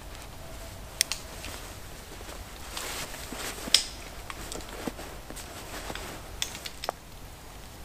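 Hammock and tarp being taken down and packed: rustling fabric and handling noises with scattered sharp clicks, the loudest a little under four seconds in and a few quick ticks near the end.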